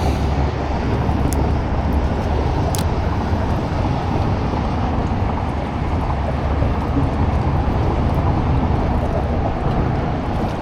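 Steady low outdoor rumble at a fairly even level, with two faint sharp ticks in the first few seconds.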